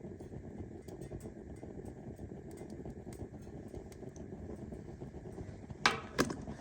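Kerosene heater burning steadily with its wick turned all the way up, a low rumbling noise. Two sharp knocks, about a third of a second apart, stand out near the end.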